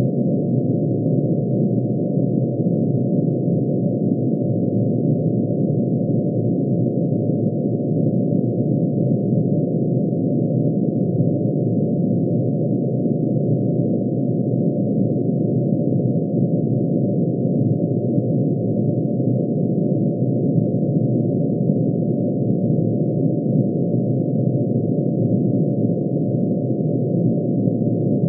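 Synthesized tone made of many sine waves added together, the emission spectrum lines of mercury shifted down into the audible range. It holds a steady, dense, unchanging chord of low and middle pitches.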